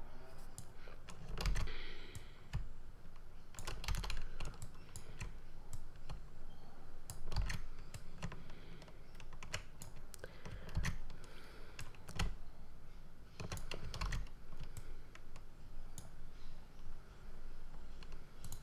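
Irregular light clicks and taps at a computer, from mouse buttons and keys, at an uneven pace with short pauses.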